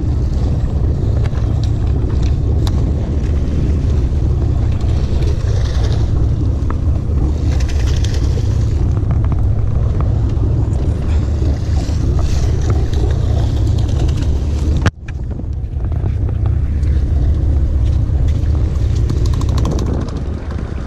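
Sportfishing boat's engine running with a steady low rumble, mixed with wind on the microphone; the sound breaks off sharply for a moment about fifteen seconds in.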